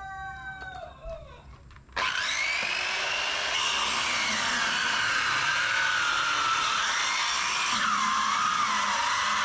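A rooster crowing, then about two seconds in an electric power tool starts abruptly and runs under load with a steady, loud hiss and a whine that wavers up and down as the load changes.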